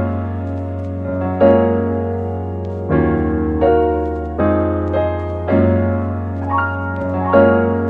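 Background piano music: slow, sustained chords, with a new chord struck about every one and a half seconds.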